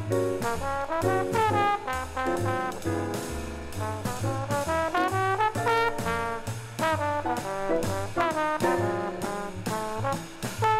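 Jazz combo playing: a trombone carries a moving melodic line over a bass line and drums with regular cymbal strokes.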